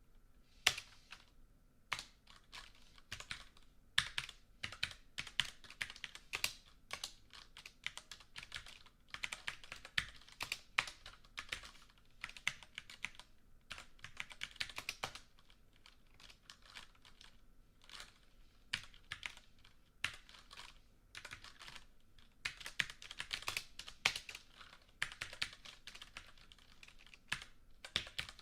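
Typing on a computer keyboard: keys clicking in quick runs broken by short pauses.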